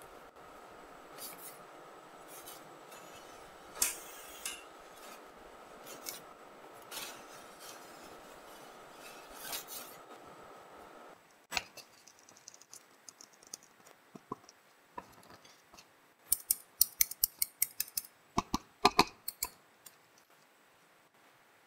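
Steel spatula scraping and rolling ice cream across a frozen steel cold plate in repeated strokes, over a faint steady hum that stops about eleven seconds in. Near the end, rapid metallic clicking of steel tongs lifting the rolls off the plate.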